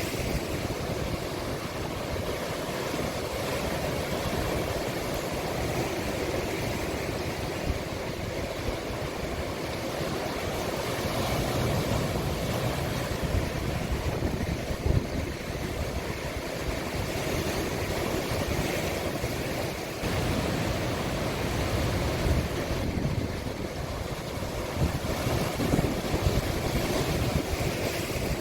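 Sea waves breaking and washing on the shore in a steady rushing surf, with a low rumble of wind on the microphone.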